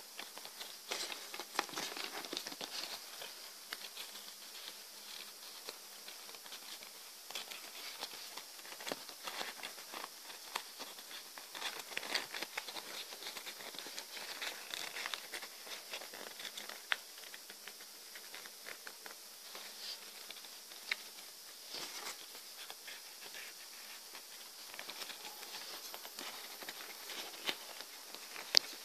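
Sheets of origami paper being folded and handled close up: irregular rustling and crinkling with small crackles as creases are pressed, and one sharper snap near the end.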